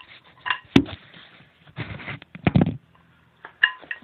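Handling noise as a phone is moved and settled into place: a run of knocks and rustles, a low thump about two and a half seconds in, and a few short ringing clinks near the end.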